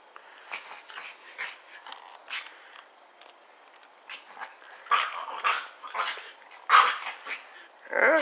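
Chihuahuas growling and barking at each other in play, in short bursts that grow louder and more frequent from about five seconds in.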